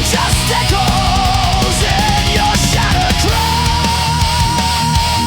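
Heavy metal instrumental passage: a lead electric guitar plays bent notes with vibrato, settling about three seconds in into one long held note with vibrato, over a driving band with drums.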